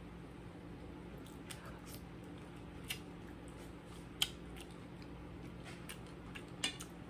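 Quiet eating of boiled crab: a few short sharp clicks as the shell is picked apart and the meat is eaten, the loudest about four seconds in, over a steady low hum.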